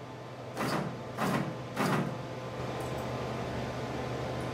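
CNC router's stepper-motor axes jogging the spindle in three short moves about a second in, while the bit is being zeroed over the workpiece, over a low steady hum.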